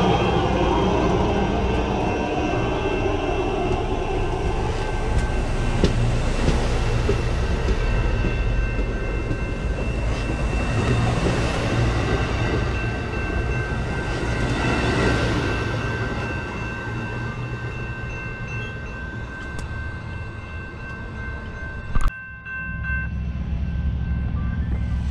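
Amtrak Superliner bilevel passenger cars rolling past close by: a steady rumble and hiss of wheels on rail, with a few faint steady high tones, easing off after about 16 seconds as the train moves away. About 22 seconds in, a sharp click cuts it off, and a low steady rumble follows.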